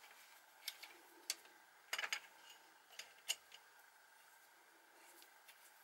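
Faint, light metallic clicks and clinks, a handful spread over the first few seconds, as the end of a steel carriage-stop rod and its spacer are fitted and screwed into the tapped hole on a lathe carriage.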